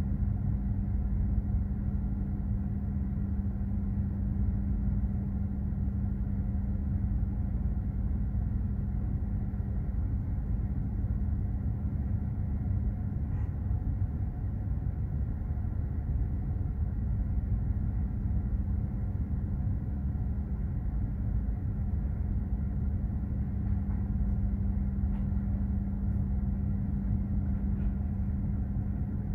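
Container ship underway at sea: a steady low rumble with a constant low hum that stays even throughout.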